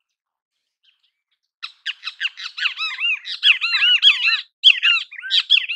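Great kiskadee calling: a rapid run of short rising-and-falling notes that starts nearly two seconds in, with a brief pause near the end.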